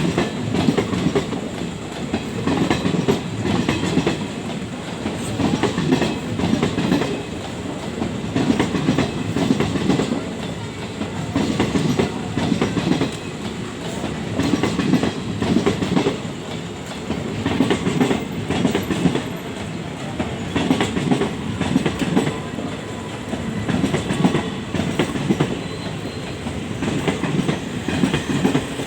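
Express train rolling past, its wheels clacking over rail joints in a steady repeating rhythm, with groups of clacks about every two seconds over a continuous rumble.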